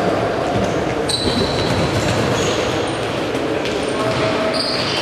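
Indoor futsal play in an echoing sports hall: the ball thudding on the floor and off feet, trainers squeaking briefly on the court several times, and players' voices calling out.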